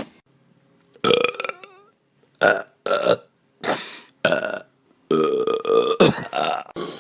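A person burping on command, a string of about five short burps followed near the end by one long, drawn-out burp.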